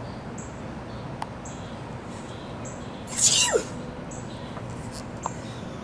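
A woman sneezing once, "achoo", about three seconds in: a sharp hissing burst followed by a short voiced tail that falls in pitch.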